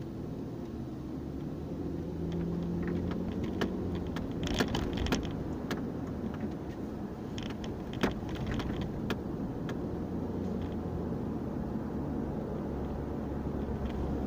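Steady low road and engine rumble heard inside a moving car, with scattered light clicks and rattles in the middle stretch.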